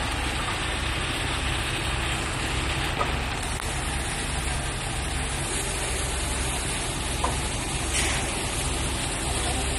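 A fire truck's engine running steadily while its knuckle-boom crane is worked, with a brief faint click about eight seconds in.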